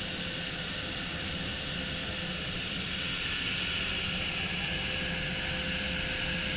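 Steady whine of the Norrköping-class fast attack craft R142 Ystad's gas turbines, with the rush of wind and wake, heard from the open deck while the boat runs at speed. The noise grows a little louder about halfway through.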